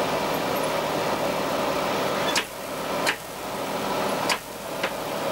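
Steady drone of a diesel railcar heard from inside its driver's cab while running. Four sharp clacks fall in the second half.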